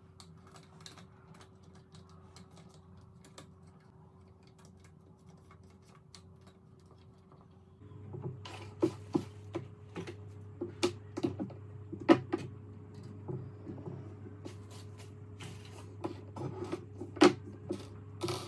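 Hands handling microscope parts, plastic packaging and a cable on a tabletop: scattered clicks and knocks, a few of them sharp, starting about halfway through over a low steady hum. Before that, only faint room noise with the hum.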